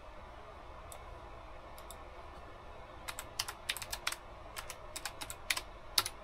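Typing on a computer keyboard: a few scattered key clicks, then from about three seconds in a quick, irregular run of keystrokes.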